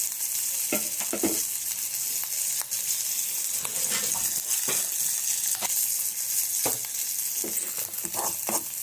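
Chopped ginger and turmeric sizzling in hot desi ghee in a kadhai, with a steady high hiss. Short scrapes of stirring against the pan come every second or so.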